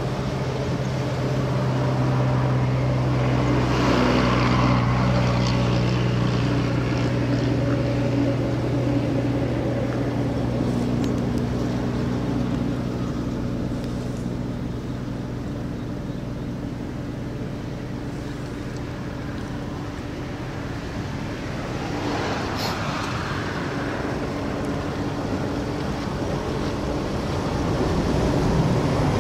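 An engine running steadily with an even hum, which fades somewhat about two-thirds of the way through.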